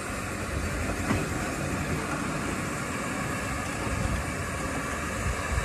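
Steam locomotive moving slowly tender-first past the platform: a steady noise of wheels and running gear, with a single knock about a second in.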